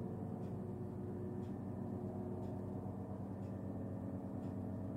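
Soft background music: sustained low chords with a faint tick about once a second.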